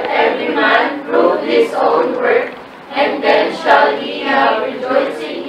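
A congregation reading a Bible passage aloud in unison, many voices speaking together in a steady, chant-like cadence.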